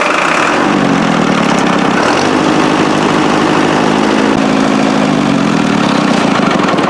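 Tractor engine running just after being started, settling into a steady idle about a second in.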